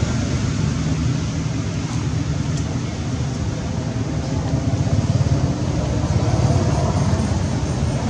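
Steady low rumble of outdoor background noise, with no distinct calls or knocks standing out.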